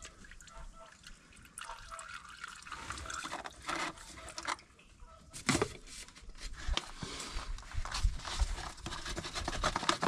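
Diesel dribbling from an opened tractor fuel filter housing into a plastic catch container, with irregular clicks and knocks as the filter housing is unscrewed and handled.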